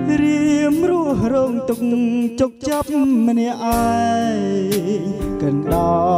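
A man singing a ballad into a handheld microphone over a backing track with a drum beat, both amplified through a MY 602 mixer and PA speakers. The music breaks off for a moment about halfway through, then carries on.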